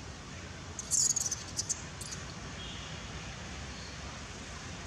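Steady outdoor background noise, with a short flurry of sharp, high-pitched chirps about a second in.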